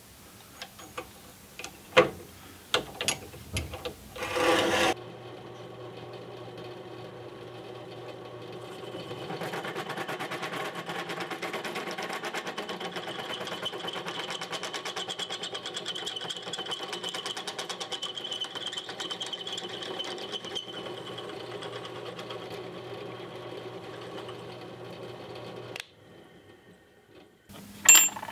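Clicks and knocks of a drill-press vise being set and tightened, then a benchtop drill press motor running from about five seconds in. From about nine seconds its large bit cuts into a metal turbo oil drain flange with a steady, dense whine, drilling it out to tap size for a half-inch NPT thread. The press stops a couple of seconds before the end, and a few light clicks follow.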